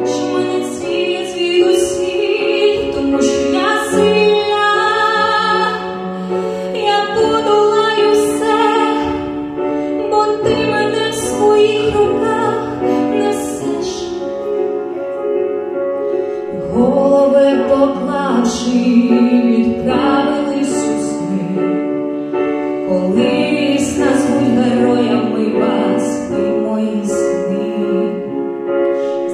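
A woman singing a slow ballad in a sustained voice, accompanied on piano.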